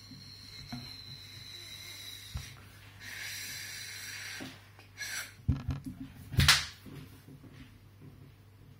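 Air blown into sticky slime: a breathy hiss, then wet bubbling, gurgling and popping, with the loudest pop about six and a half seconds in.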